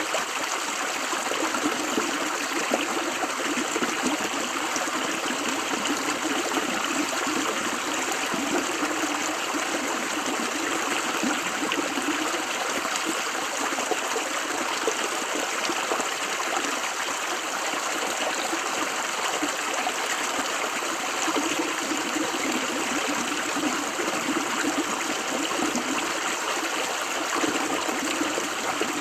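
A river running steadily over stones, a continuous rushing and trickling of flowing water with no lulls.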